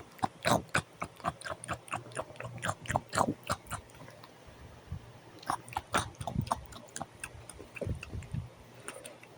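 Chewing and mouth-smacking noises standing in for a toy eating a gumball. There is a quick, irregular run of clicks for about four seconds, then a few more scattered ones halfway through and near the end.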